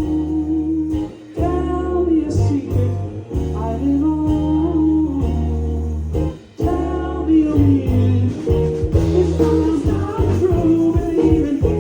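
Live band playing a song: a voice singing over guitar, bass and drums. The music drops out briefly about a second in and again just past six seconds, and the drums hit harder and more often in the second half.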